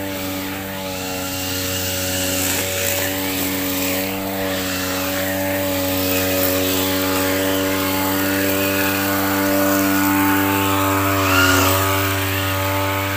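A small engine running steadily at one unchanging pitch, over a hiss of wind and road noise. It wavers briefly and gets a little louder about 11 seconds in.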